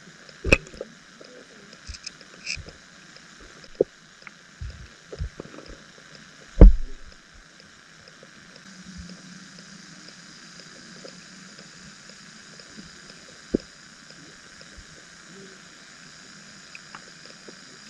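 Underwater sound picked up by a submerged camera: a steady hiss with scattered clicks and knocks, the loudest a single thump about a third of the way in.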